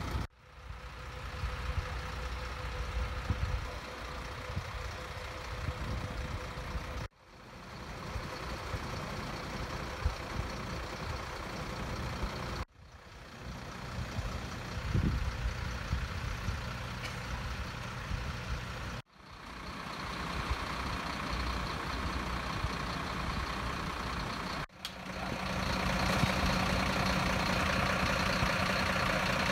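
Heavy diesel engines of parked fire engines idling with a steady rumble, heard in several short segments that cut off abruptly. Near the end a louder steady drone comes in.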